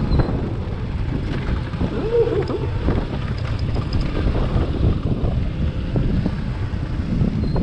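KTM Duke 125's single-cylinder engine running in gear on a steep loose gravel descent, the bike hard to hold back even with the engine braking, mixed with wind noise on the microphone.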